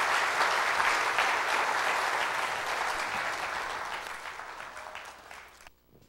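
Church congregation applauding: dense clapping that gradually dies away over the last few seconds, then stops abruptly.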